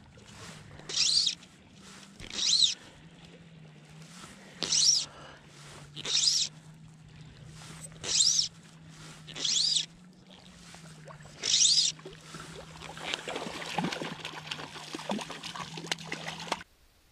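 Fly line being retrieved in seven short, regular pulls, each a brief high-pitched zip, while a hooked trout is brought in. Over the last few seconds water splashes as the fish thrashes at the surface, and then the sound cuts off suddenly.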